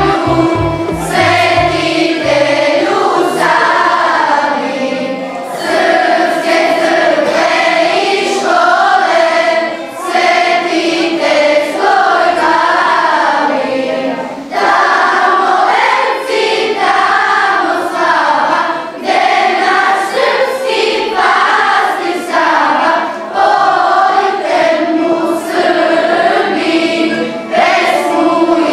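Children's choir singing a song, phrase after phrase, with short breaks for breath between the lines.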